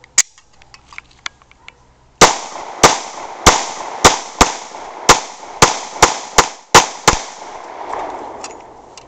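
After a single sharp click, the FMK 9mm pistol fires eleven shots in quick, uneven succession from about two seconds in, over roughly five seconds. Each shot is followed by an echoing tail.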